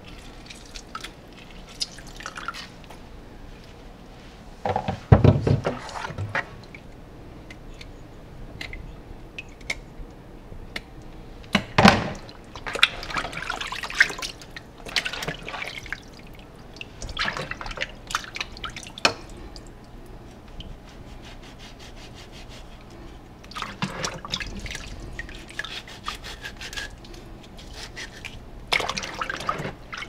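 Water sloshing, splashing and dripping as hands rub and wash raw fish pieces in a plastic basin of water in a steel sink, in irregular bursts. A thump about five seconds in and another loud splash around twelve seconds are the loudest sounds.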